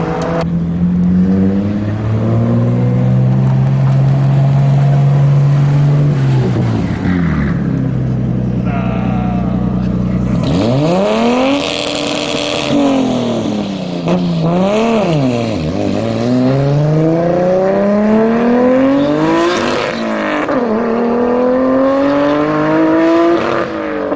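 Car engines pulling away: a steady engine drone for the first several seconds, then from about ten seconds in a Nissan Skyline R33 GT-R's twin-turbo straight-six revs up and down a few times, then accelerates away through the gears, its pitch rising and dropping at each shift.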